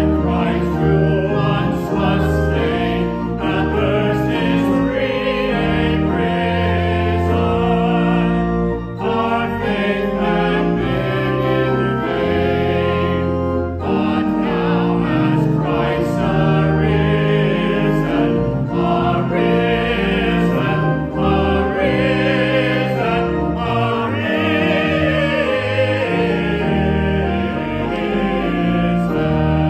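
A choir singing a sacred piece in held, changing chords over a sustained low accompaniment, with brief breaks between phrases.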